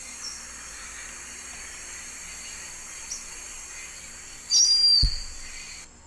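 Tropical rainforest field recording: a steady background of insect hiss, broken about four and a half seconds in by a brief, loud, high chirp and a low thump.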